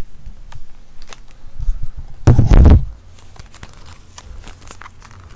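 Handling noise from a hand-held microphone: scattered clicks and rustles, with one loud, low rumble lasting about half a second just past two seconds in.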